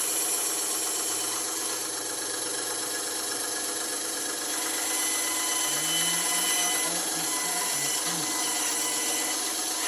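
Bandsaw running steadily, its motor and blade giving a continuous mechanical whir.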